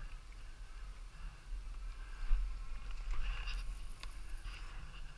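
Snow crunching and riding gear rustling as the stuck bike is gripped and shifted by hand, over a low wind rumble on the microphone, with a louder rustle about two seconds in.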